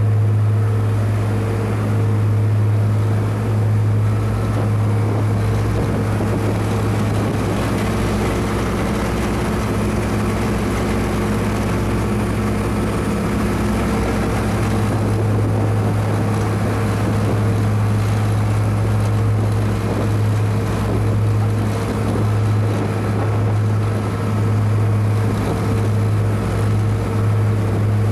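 A ship's engine running with a steady low hum under a continuous hiss of wind and water, as heard from a vessel under way at sea.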